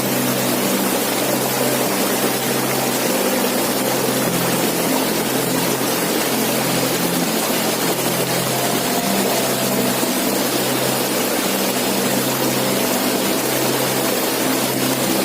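Waterfall: water falling and rushing steadily, a constant full noise with a low rumble underneath.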